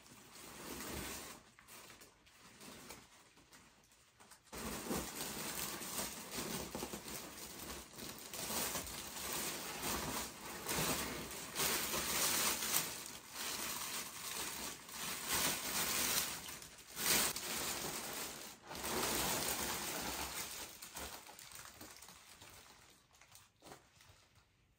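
Rustling and crinkling of gift packaging being handled and opened. It is a dense, crackly rustle that starts about four seconds in, swells and dips with some sharper clicks, and fades out near the end.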